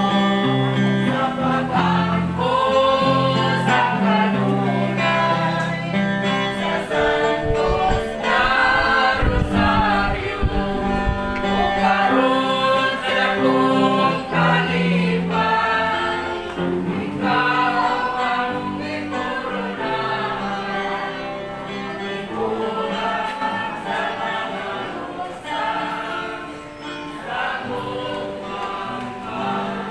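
A group of voices singing a gospel-style religious song with guitar accompaniment.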